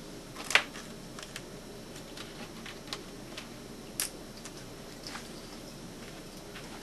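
A few light clicks and taps from small objects being handled on a workbench, the sharpest about half a second in and about four seconds in, over a low steady background noise.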